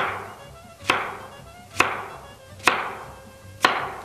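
Chef's knife slicing a zucchini into diagonal rounds, the blade knocking sharply on the cutting board five times, about once a second, each knock trailing off briefly.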